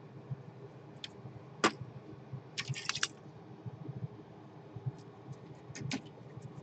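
Scattered light clicks and taps from a circuit board and tools being handled on a workbench, with a short run of rapid clicks about three seconds in, over a faint steady hum.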